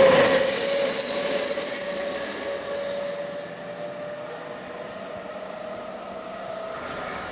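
A train rolling past with a steady squeal from its wheels on the rails, loud at first and dropping away about two and a half seconds in, a fainter squeal lingering after.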